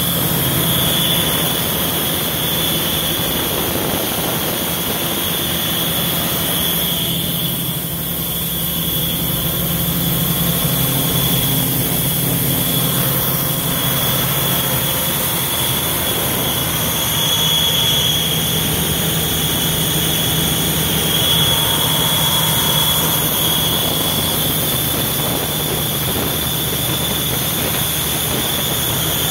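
Ingersoll Rand VHP400WIR diesel portable air compressor running steadily, a constant engine hum with a steady high-pitched whine over it.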